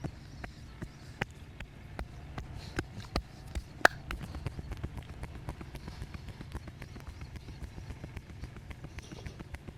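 Massage percussion: hands slapping and tapping on the body in a quick, uneven patter, with one much louder sharp smack about four seconds in.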